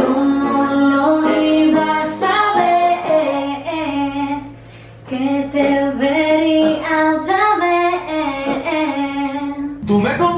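Music: a woman's voice singing a melodic pop song over a steady backing, with a short break about four and a half seconds in; the backing changes just before the end.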